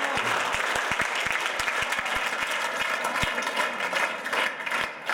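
A crowd of schoolchildren clapping hands overhead, a dense steady applause that thins to scattered separate claps near the end.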